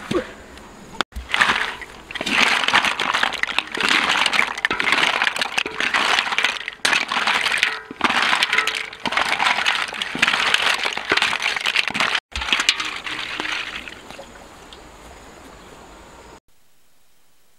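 Fried snail shells clattering and scraping against a metal wok as they are scooped into a wicker basket, in repeated bursts of a few seconds.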